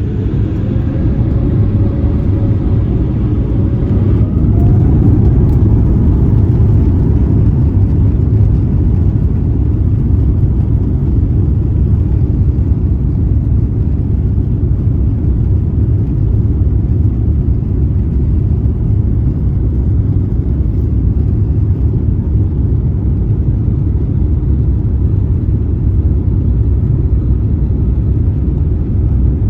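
An Airbus A350's Rolls-Royce Trent XWB jet engines spool up to takeoff thrust, with a whine that rises over the first few seconds. A loud, steady, deep roar follows through the takeoff run.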